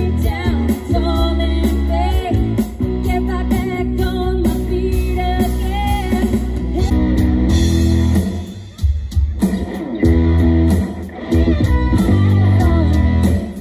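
Live 1980s-style rock band playing: a woman singing over electric guitars, bass and drums. About halfway through the singing drops away and the guitars carry on.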